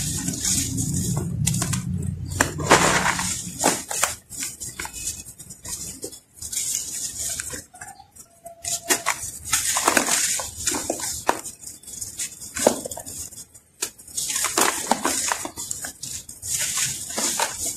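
Hard chunks of dry earthy sand crumbling in the hands: crisp crackling and crunching as the clumps break, with a gritty hiss of loose sand sifting through the fingers. It comes in bursts with brief pauses.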